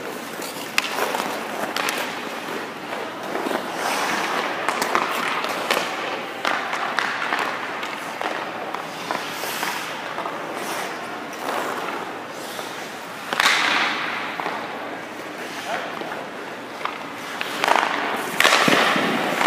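Hockey skates scraping and carving on rink ice, with a few sharp stick-on-puck clacks and thuds. There are two louder scraping sprays, one about thirteen seconds in and one near the end.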